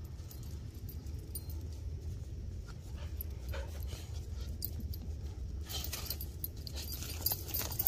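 Dogs moving about and sniffing on dirt and dry leaf litter, heard as faint scuffling and rustling that grows louder in the last two seconds, over a steady low rumble. A dog gives one brief, faint whine about three and a half seconds in.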